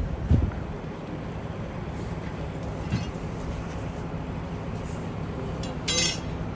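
A vehicle engine idling steadily during a tire change, with a dull thump shortly after the start, a small knock midway and a short sharp clatter about six seconds in.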